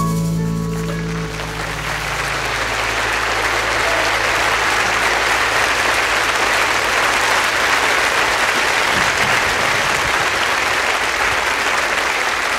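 The band's final chord rings out and fades over the first second or two as a concert audience breaks into applause, which then goes on steadily.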